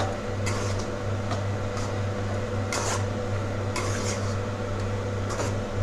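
A ladle stirring cooked vermicelli kichadi in a steel kadai: soft scraping and rustling strokes about once a second, over a steady low hum.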